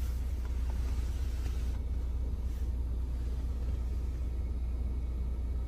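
Steady low rumble inside the cabin of a 2010 Toyota Corolla Altis as its engine idles.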